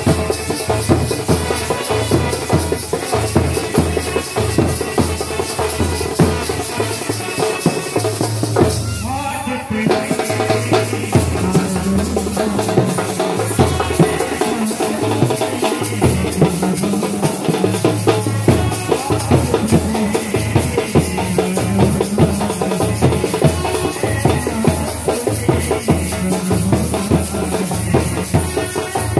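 Indian brass band music: several trumpets playing a tune over a steady, driving drum beat, with a short break about nine seconds in before the beat picks up again.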